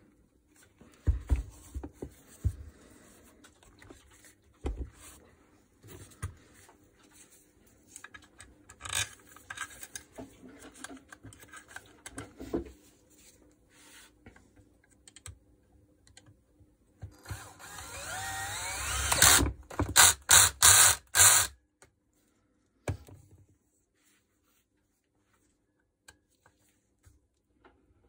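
Scattered clicks and knocks of metal parts being handled on an opened electric motor, then a cordless drill-driver spinning up with a rising whine about 17 seconds in. It runs in several short loud bursts over the next few seconds.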